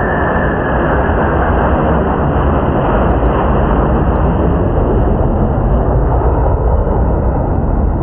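Aircraft engines at an airshow, a loud steady rumble with no rise or fall in pitch.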